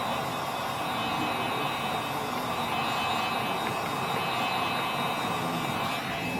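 Heat gun blowing hot air in a steady whir, heating the phone's screen to soften the adhesive holding the glass.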